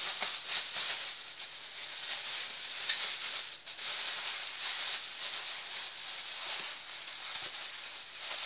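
Thin polyethylene bag crinkling and rustling as hands slip bagged meat into it, press it down and twist and tie the bag shut.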